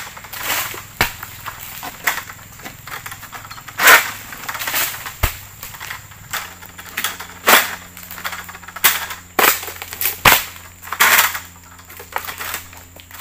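Long-pole oil palm harvesting sickle (egrek) being pulled into the crown of an oil palm, cutting through frond bases and fruit-bunch stalks. It makes a dozen or so irregular sharp cracks, some followed by brief rasping rustles.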